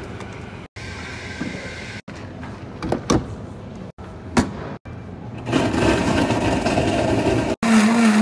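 A few sharp clicks and knocks as a syrup pump is worked and a blender pitcher is set in place. From about five and a half seconds in, a commercial blender in its sound enclosure runs loudly, blending ice into a frappuccino. The sound cuts out briefly several times between short clips.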